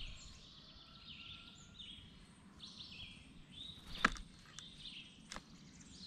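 Faint songbirds chirping and calling in the surrounding woods: many short, high calls, with one sharp tap about four seconds in and a fainter one later.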